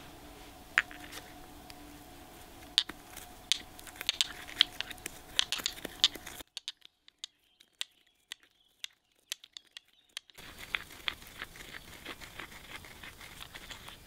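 Dry cardamom pods clicking and crackling against a small stone mortar as they are broken and crushed, in sharp separate clicks. The sound drops to near silence for a few seconds in the middle, then returns as denser small clicks of the pestle crushing the pods.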